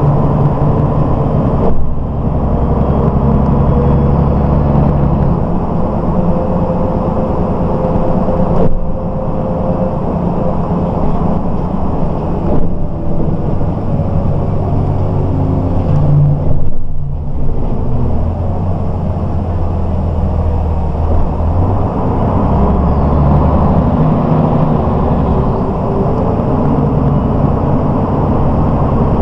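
MAN SL 202 city bus heard from inside the passenger cabin while driving, its engine running steadily along with road noise. The low engine note steps in pitch several times, with brief dips about 2, 9 and 17 seconds in.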